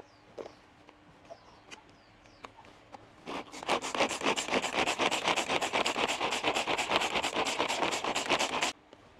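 Rapid, even scraping strokes, several a second, starting about three seconds in and stopping abruptly shortly before the end, from hands-on food preparation.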